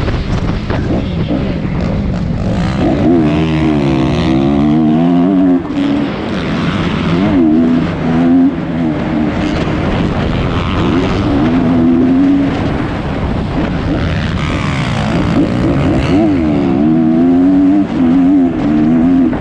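Honda CRF230 dirt bike's four-stroke single-cylinder engine revving hard as it is ridden around a motocross track, its pitch climbing and falling over and over through the gears. A few times the throttle is briefly shut off.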